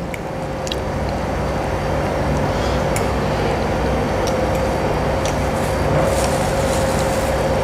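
Steady hum and whir of a kitchen ventilation fan, with a few faint light clinks of cutlery on a bowl.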